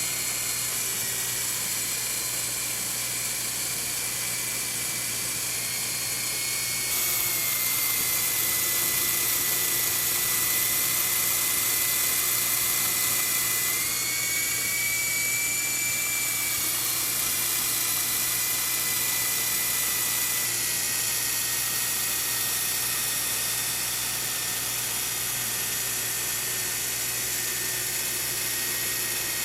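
Syma S5 mini RC helicopter in flight: the high whine of its small electric motors and coaxial rotors, running steadily and shifting up and down in pitch and loudness a few times as it is flown.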